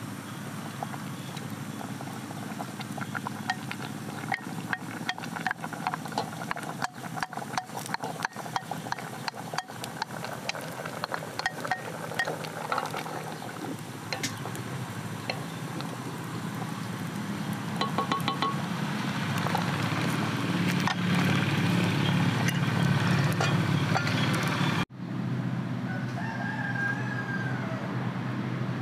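A wooden spoon stirring a metal pot of simmering broth, knocking against the pot in a run of quick clicks. A rooster crows in the background.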